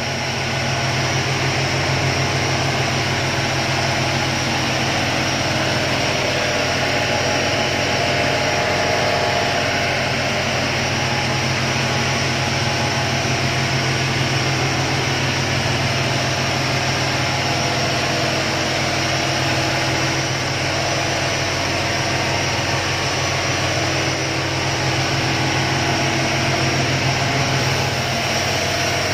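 Motor boat under way at speed: the engine running steadily under load, with the rush of water and wake along the hull.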